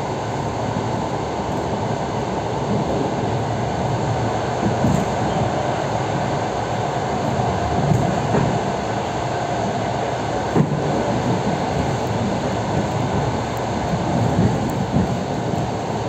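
Suburban electric train running at speed, heard from inside the carriage: a steady rumble of wheels on rails with a few sharp knocks.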